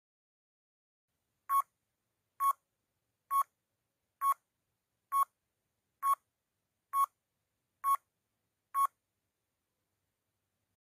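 Countdown timer beeping: nine short electronic beeps, a little under one a second, each a sharp tone pitched near 1 kHz.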